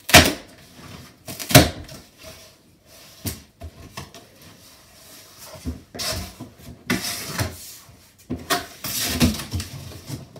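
Cardboard shipping box being opened: two sharp rips as the tear strip comes away, the second about a second and a half in, then the cardboard lid and flaps scraping and rubbing as they are lifted and folded open.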